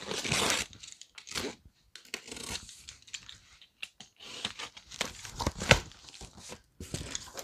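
Box cutter slicing through packing tape and plastic stretch wrap on a cardboard box, with ripping and crinkling as the cardboard flaps are pulled open. A sharp thump about five and a half seconds in.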